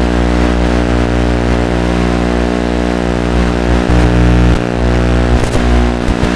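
A steady buzz of unchanging pitch, with a few knocks between about four and a half and six seconds in as the RC crawler rolls from its roof back onto its wheels.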